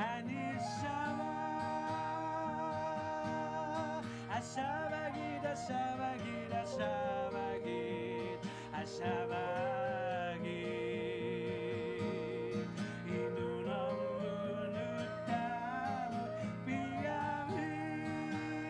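A man singing a slow love song in long held notes with vibrato, accompanied by a strummed acoustic guitar and a keyed woodwind.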